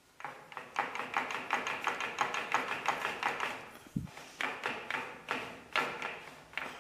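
Metallic clicking from the tail rotor gearbox of a home-built helicopter as its shaft is worked by hand, a quick run of light clicks about five a second. There is a short pause and a single dull knock about four seconds in.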